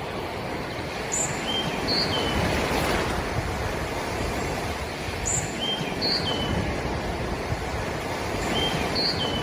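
Ocean surf washing in, a steady rushing that swells and eases. Over it a short high chirping call of a few notes repeats three times, about every three and a half seconds.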